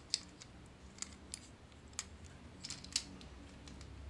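Irregular sharp clicks and taps of a Transformers Masterpiece Tracks figure's plastic parts being twisted and snapped into place by hand during its transformation.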